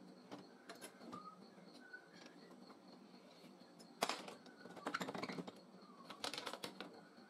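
Faint metallic clicks and taps of fencing wire and a steel rod against a homemade angle-iron clip-bending jig held in a bench vise: a few light clicks at first, a sharper click about four seconds in, then short clusters of light clicking.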